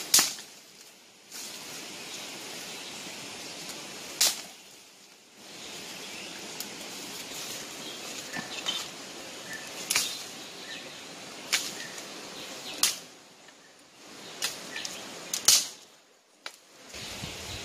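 Footsteps brushing through dry leaves and undergrowth, with a series of sharp cracks of twigs and stems, over a steady hiss.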